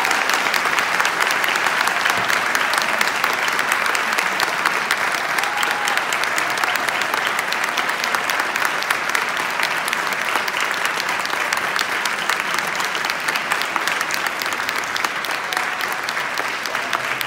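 A large audience applauding steadily, the clapping easing off slightly toward the end, with a few voices calling out in it.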